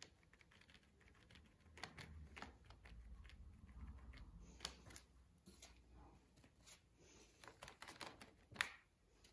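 Faint, irregular soft tapping of a paint-loaded sponge dabbed onto paper, with one sharper click near the end.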